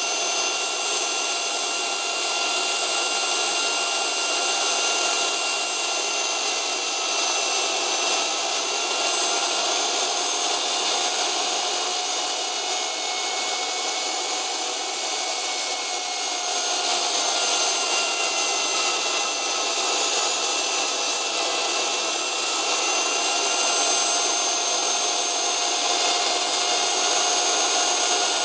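Small homemade jet engine running steadily: a loud high-pitched turbine whine over a rushing hiss. Its pitch rises a little about a third of the way in and drops back a few seconds later.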